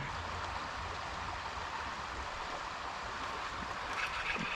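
Steady rushing of a rain-swollen creek's flowing water, with a slightly brighter hiss coming in near the end.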